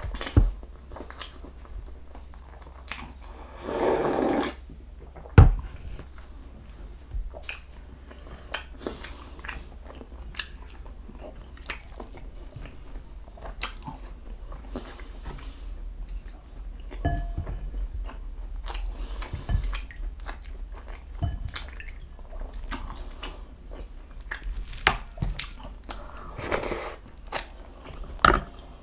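Close-miked eating of beef bulalo and ossobuco: steady chewing with irregular bites, crunches and wet mouth clicks. There are two longer noisy sounds, one about four seconds in and one near the end.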